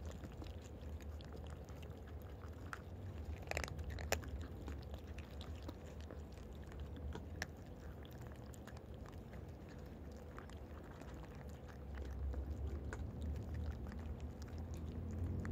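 Cats eating dry cat food: a run of small, crisp crunches and clicks at irregular intervals, busiest a little under four seconds in, over a steady low rumble.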